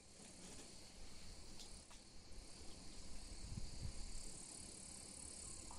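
Steady, high-pitched chirring of a summer insect chorus, with a low rumble underneath.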